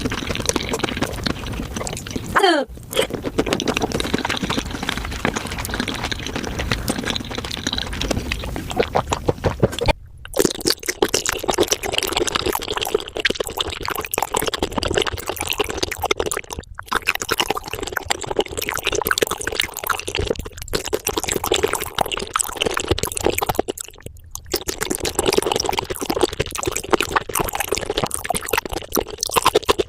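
Close-miked eating sounds of raw shrimp played at five times speed: wet chewing and slurping squeezed into a dense run of rapid clicks. A few short breaks fall where one clip cuts to the next.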